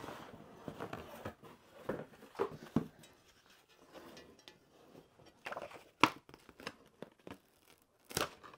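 Cardboard box being opened and unpacked: irregular tearing, scraping and rustling of cardboard and packaging, with a few sharp knocks, the loudest about six seconds in.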